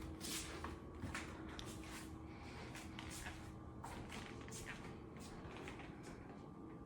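Uneven shuffling steps and soft knocks of a person hobbling across the floor on a leg cast, irregular and faint, thinning out near the end.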